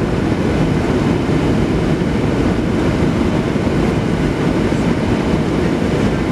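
Steady in-flight cabin noise of a Boeing 737-700 on approach: a low, even rumble of its CFM56-7 engines and the rushing airflow, heard from a window seat over the wing.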